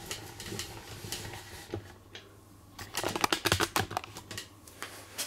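Hard parts of a dismantled pressure washer pump being handled, giving scattered small clicks and a quick run of sharp clicks and rattles about three seconds in.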